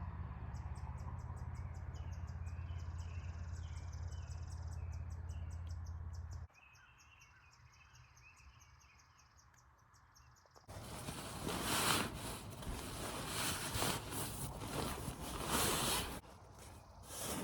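Insects trilling in a fast, even ticking, with birds chirping, over a low steady hum that stops abruptly about six seconds in. From about eleven seconds in, loud uneven rustling and handling noise covers them.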